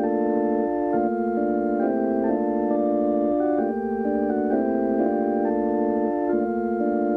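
Electric organs playing a repeating minimalist figure of held chords, the pattern cycling about every two and a half seconds.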